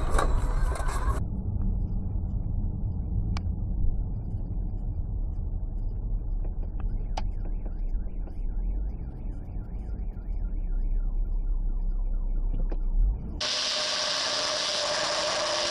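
Low, steady rumble of a car on the move, as picked up by a dash camera, with a few faint clicks. About thirteen seconds in it switches abruptly to a louder hissing road noise with a faint engine tone slowly rising.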